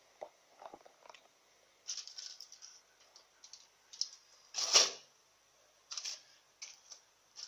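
A foil-covered pudding mold is set onto a perforated stainless-steel steamer plate. There are light foil rustles and small clinks, with one louder metallic clatter a little under five seconds in as the mold comes down on the plate.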